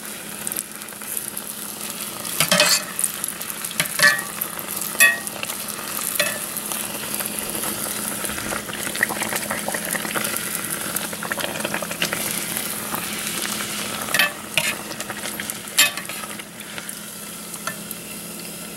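Bake dough deep-frying in hot oil in a metal saucepan, a steady sizzle, with a few sharp clinks of a metal spoon against the pot as oil is spooned over the dough.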